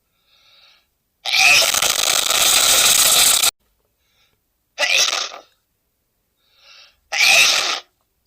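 A man sneezing three times in a row, with short in-breaths heard before the first and last sneezes. The first sneeze is long and loud, lasting about two seconds; the other two are short.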